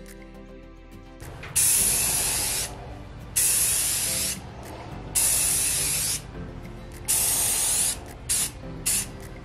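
Aerosol can of semi-gloss white spray paint hissing in four spurts of about a second each, then two or three short puffs near the end.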